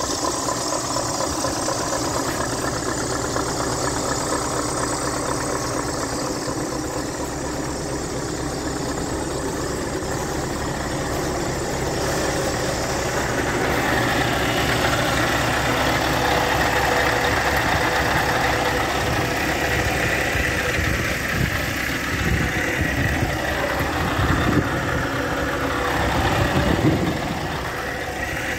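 Scania R520's 16-litre V8 diesel idling steadily, growing louder about halfway through, with a few short thumps near the end.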